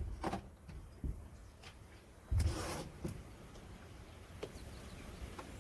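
Objects being handled and set down: a few light clicks, then a dull thump about two and a half seconds in, followed by faint scattered ticks.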